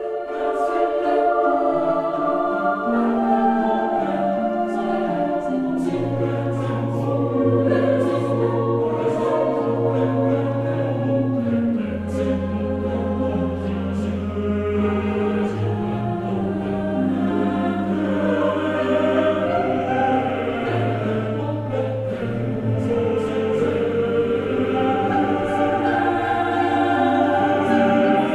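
Slow choral music: voices singing over long held low notes that change every few seconds, starting suddenly right at the beginning.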